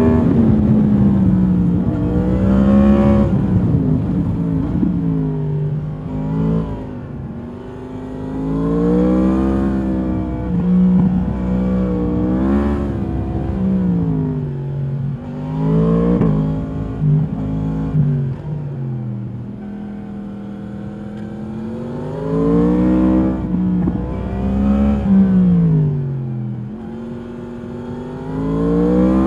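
2022 Yamaha MT-10's crossplane inline-four through its stock exhaust, heard from the rider's seat while riding: the engine note repeatedly climbs under throttle and falls back off it, several times over.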